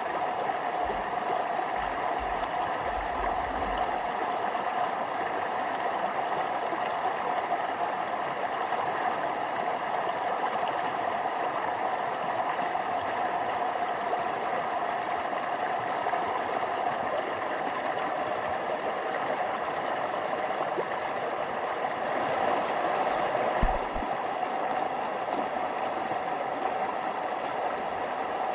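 Small forest stream flowing steadily over little waterfalls, an even rushing of water. One brief knock near the end.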